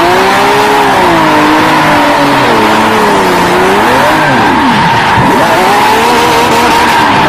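Lamborghini sports car engine revving up and down while its tyres squeal in a steady screech, as the car spins donuts.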